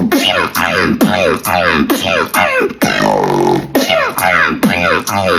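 Beatbox routine imitating a clown: a quick run of falling pitched vocal glides, about two a second, each cut off by a sharp mouth-percussion click.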